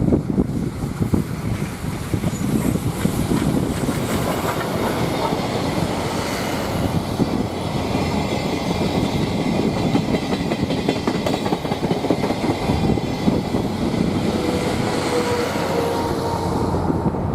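Steam-hauled passenger train of 12-series coaches running past, its wheels clattering over the rail joints in a rapid, continuous clickety-clack.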